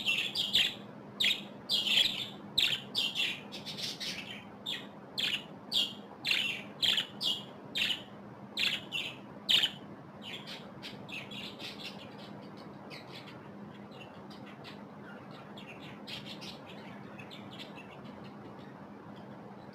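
Budgerigars chirping: loud, sharp calls in quick succession for about the first ten seconds, then softer, scattered chirps, over a steady low hum.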